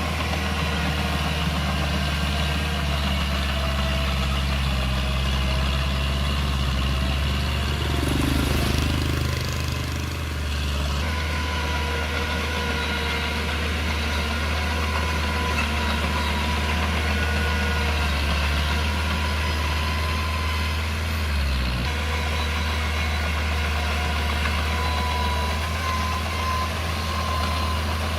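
Diesel engine of a small Komatsu bulldozer running steadily, its engine note shifting about eight seconds in and dipping briefly around twenty-one seconds.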